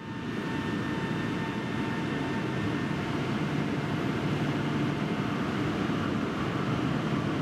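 Steady hum and rush of a Shinkansen platform with an E5/E8 train set standing at it, its onboard equipment running; it fades in at the start. A faint steady high whine is heard over it for the first couple of seconds, then stops.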